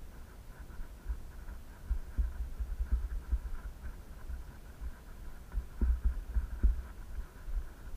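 Irregular low thumps and rumble from a handheld camera's microphone being jostled as it moves, with a faint steady hum behind.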